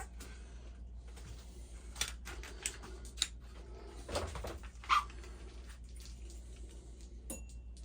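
A few scattered clicks and knocks of shower-head fittings being handled as the old RV shower head is unscrewed and a new one fitted, over a steady low hum.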